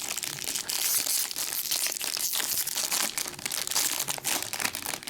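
Baseball card pack wrappers crinkling and tearing as packs are torn open and the cards handled, a continuous crackly rustle.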